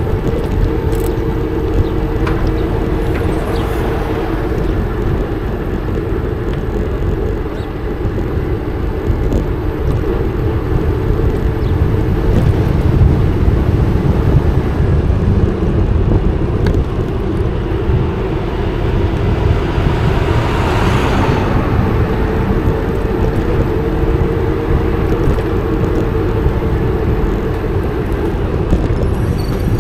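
Wind rumbling on an action camera's microphone while riding an e-bike through city streets, with a steady low hum underneath. A louder rushing swell comes and goes about twenty seconds in.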